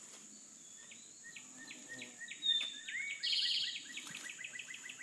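Songbirds calling: a run of quick repeated chirping notes, with one loud clear whistle about two and a half seconds in and a rapid trill just after. A steady high insect drone runs underneath.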